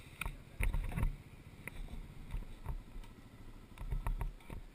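Off-road vehicle engines idling at a standstill: a low, steady rumble broken by irregular short knocks.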